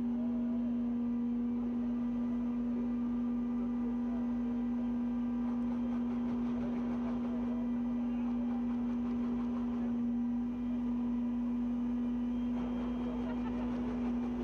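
A mobile crane running while it hoists a load: one unwavering hum with a low rumble beneath it.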